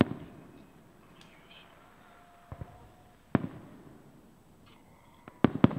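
Aerial firework shells bursting: a sharp bang at the start, two small pops about two and a half seconds in, another bang just after, then a quick cluster of bangs near the end, each trailing off in echo.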